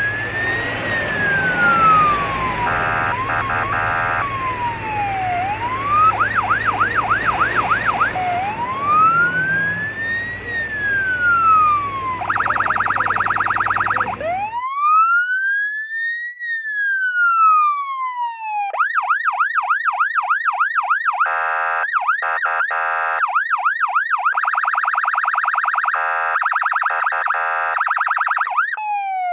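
Electronic police car siren switching between a slow rising-and-falling wail, a fast yelp and a harsh pulsing tone. For the first half it sits over road noise and a low engine hum, which cut off suddenly about halfway, leaving the siren alone.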